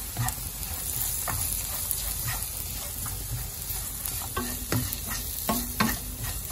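Onions and spices sizzling in hot oil in a nonstick frying pan while a plastic spoon stirs them, scraping against the pan. The scrapes come about once a second at first, then closer together in the last two seconds.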